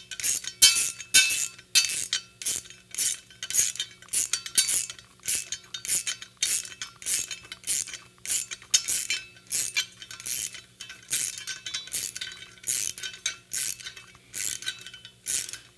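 Hand wrench ratcheting in short back-and-forth strokes as a bolt is driven into an aluminium churro on the battery-mount plate: a steady run of metallic clicks, about two to three a second, that stops just before the end.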